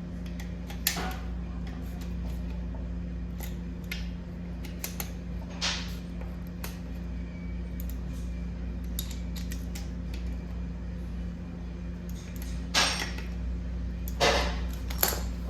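Metal tools and gearbox parts clinking and knocking as they are handled during assembly, with a few sharper knocks near the middle and end, over a steady low hum.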